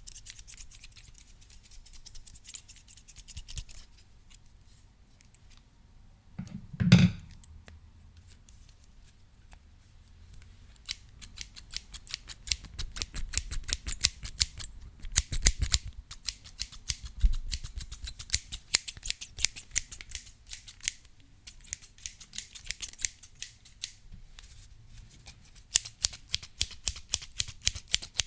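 Scissors snipping close to the microphone: a few soft cuts at first, then rapid, repeated snips from about eleven seconds in. A single loud, low thump about seven seconds in.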